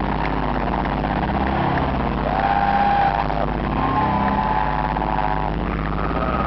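Large concert crowd making a loud steady din, with a few long held yells rising above it about two, four and six seconds in.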